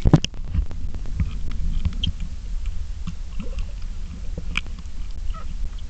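Sound picked up by a phone submerged in a pool: a splash as it goes under at the start, then a muffled low rumble of moving water with many scattered small clicks and crackles.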